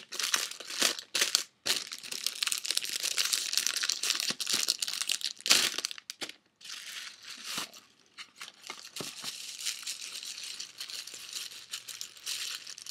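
Packaging crinkling and rustling in irregular bursts as a new phone holder is unwrapped and handled, with a few short pauses.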